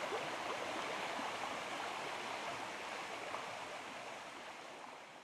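Shallow sand-and-gravel-bottomed river running over a riffle: a steady rushing of water that slowly fades out toward the end.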